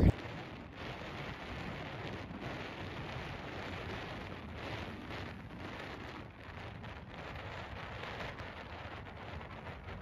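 Steady outdoor wind hiss with a faint, irregular crackly rustle.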